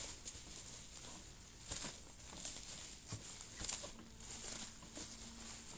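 Plastic parcel wrapping rustling and crinkling in irregular bursts as it is handled and pulled open, with scattered small knocks.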